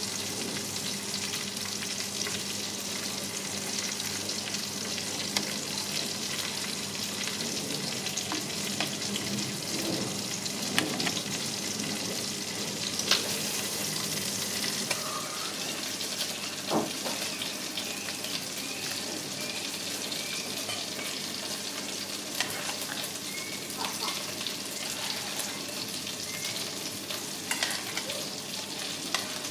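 Creamy sauce with spinach cooking in a pot on the stove, a steady sizzling, bubbling hiss as it comes to the boil, with a few sharp knocks of a utensil against the pot.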